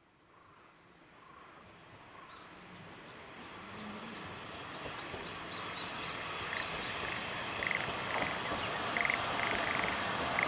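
Small birds chirping, first in quick falling notes and later in short repeated trills, over a noise that grows steadily louder as a diesel railcar approaches.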